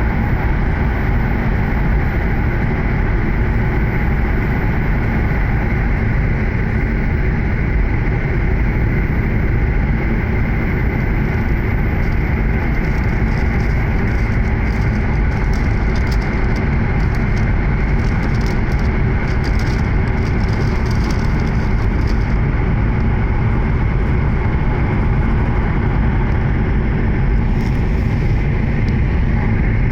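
Interior running noise of an E7-series Shinkansen passenger car moving along the line: a steady, loud rumble of wheels and air, with faint high crackling ticks through the middle.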